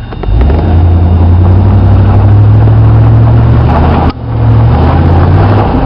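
2000 Chevy Silverado 2500's 6.0L Vortec V8 through a Flowmaster exhaust, revved hard and held for about four seconds, dropping off sharply, then revved again. The throttle is being opened to blow out the Sea Foam treatment.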